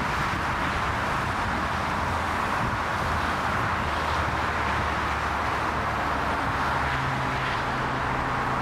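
Steady rushing jet engine noise from airliners on the runway, with a low drone underneath that grows stronger about six and a half seconds in.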